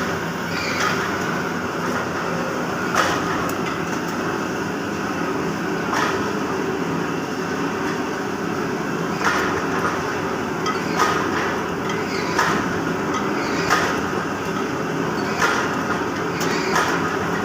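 Up-stroke friction screw forging press running with a steady mechanical hum, punctuated by about eight sharp metallic knocks, one every one and a half to three seconds, as it strikes and forges brass blanks.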